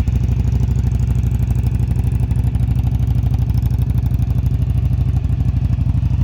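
Yamaha Dragstar 1100's air-cooled V-twin engine idling steadily with an even low pulsing beat, the freshly restored bike running.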